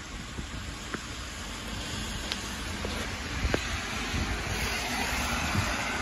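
Rain falling on a town street while a car drives past on the wet road, its tyre hiss swelling toward the end, with a few sharp taps close by.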